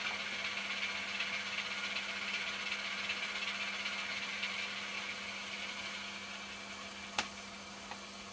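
Model Class 26 diesel locomotive's DCC sound decoder playing a Sulzer diesel engine through small speakers, with a steady hum underneath. The engine sound fades away over the last few seconds, as in a shutdown, with a sharp click about seven seconds in and a softer one just after, leaving the hum.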